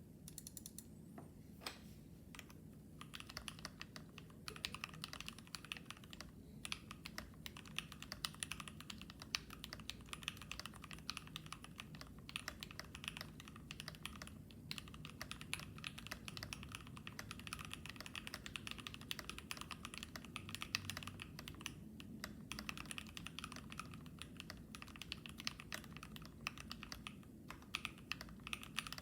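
Typing on a KBDFans D65 mechanical keyboard with a brass plate, lubed Durock Smokey linear switches and PBT keycaps: a few single key presses, then rapid steady keystrokes, broken by a few short pauses.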